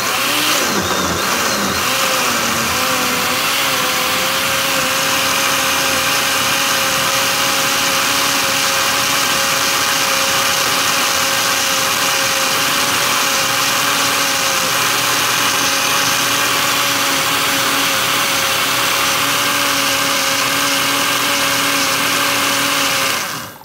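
Countertop electric blender running at a steady speed, pureeing tomatoes, onion, habanero chiles and cilantro into a liquid salsa. The motor's pitch wavers for the first few seconds, then holds steady, and it cuts off just before the end.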